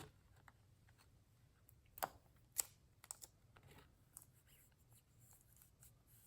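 Faint, sparse clicks and light rustles of a trading card and a plastic card saver being handled, a few sharp ticks about two seconds in and a scatter of smaller ones after.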